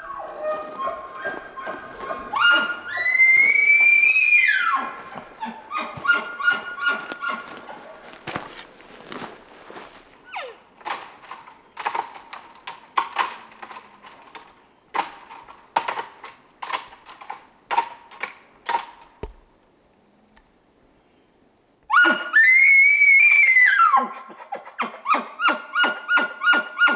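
Bull elk bugling: a low note climbs into a high, held whistle that breaks off, followed by a long run of grunting chuckles. After a short pause comes a second bugle, again followed by chuckles.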